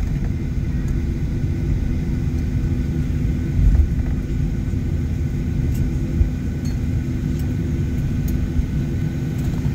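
Cabin noise of a Boeing airliner taxiing slowly: a steady low rumble from the jet engines and the rolling airframe, with a steady hum over it. A few faint clicks come in the second half.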